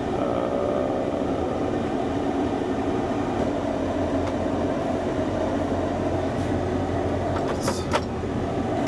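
Box truck's engine running steadily, heard from inside the cab. A few sharp clicks come near the end.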